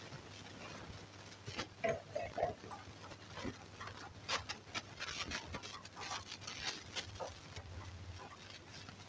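Wooden spoon stirring spinach in a frying pan, scraping the pan and knocking against it in short, irregular clicks.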